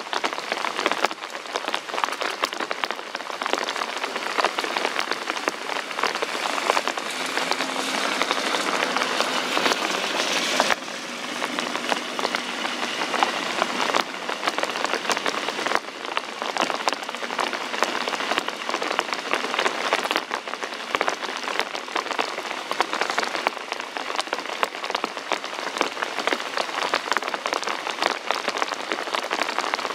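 Steady rain falling on wet ground, with many separate drop hits.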